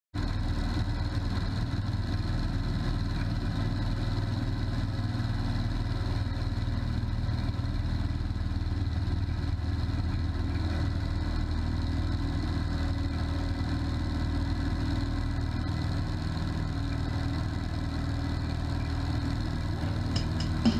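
Aeronca floatplane's piston engine and propeller running steadily in flight, an unbroken drone.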